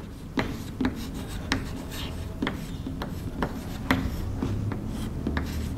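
Chalk writing on a chalkboard: short sharp taps and scrapes as the letters are written, about two strokes a second.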